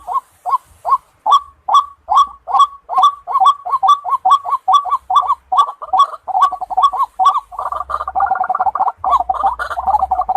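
White-breasted waterhen calling: a monotonous, repeated croaking note, about two to three a second, that thickens into a denser, overlapping run of calls in the last few seconds.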